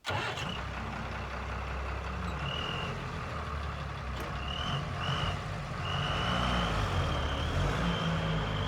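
Diesel engine of a JCB 3DX backhoe loader running steadily under load, with a high thin whine that comes and goes and then holds from about six seconds in.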